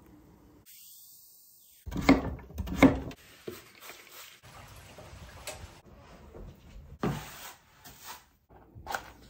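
Household knocks and thuds, the two loudest about two and three seconds in and smaller ones later, with quieter scuffing and rustling between.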